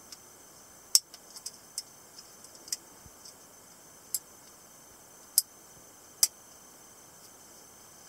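Steel balisong (butterfly knife) being opened by hand: a scattered series of sharp metallic clicks as the handles swing on their pivots and knock together. The loudest clicks come about a second in and twice in the second half.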